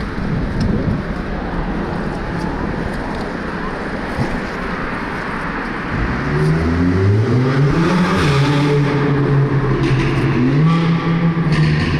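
Road traffic rumbling and echoing inside a concrete road underpass. About halfway through, a vehicle's engine note comes in over the rumble, louder than the traffic, climbing in steps and then holding.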